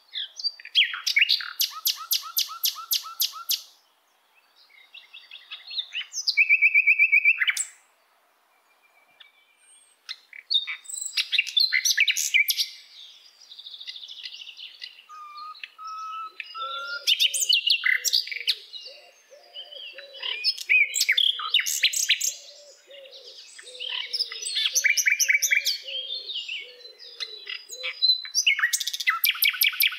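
Songbirds singing: rapid repeated trills and chirps in phrases a few seconds long, with short breaks between them. A lower warbling call joins in through the second half.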